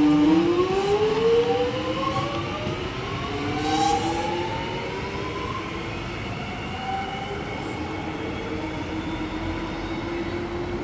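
Alstom X'Trapolis electric suburban train pulling away from the platform: its traction motors give several whining tones that climb steadily in pitch as it gathers speed, over the rumble of the train running.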